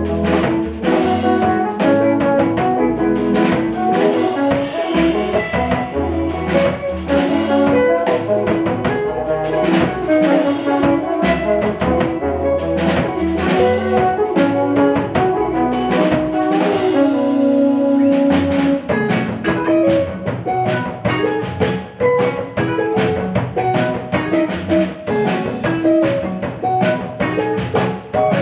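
Live jazz quartet playing: trombone over hollow-body electric guitar, Bass VI six-string bass and drum kit with busy cymbal and rim strokes. A long held note sounds about two-thirds through, and by the end the trombone has dropped out while the others play on.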